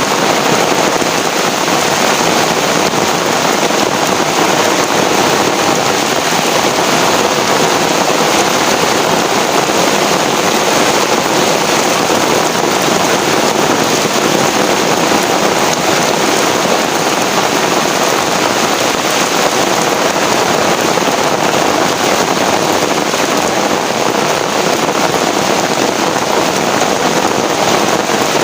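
Heavy rain falling steadily, a loud, even downpour with no breaks.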